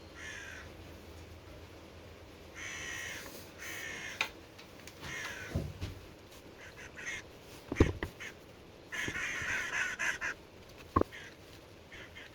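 Crows cawing several times, with a few sharp knocks of something being handled in between.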